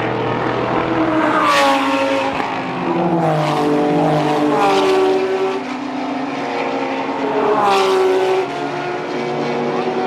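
Several GT race cars running hard past on the circuit, one after another. Their engine notes slide down in pitch several times, each with a brief rasp.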